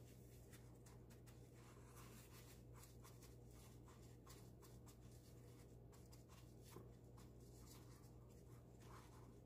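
Faint, repeated rustling and scratching of dry breadcrumbs as a gloved hand presses and turns chicken pieces in them, over a low steady hum.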